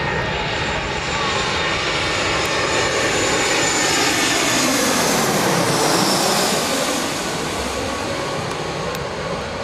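Twin-engine jet airliner on final approach passing low overhead. The engine roar builds to its loudest about five to six seconds in, its pitch falls as the plane goes over, and then it eases off.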